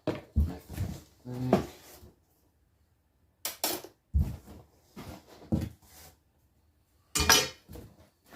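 Metal silverware and kitchen utensils clinking and clattering in a large metal pan as they are rummaged through, in short bursts with quiet gaps between.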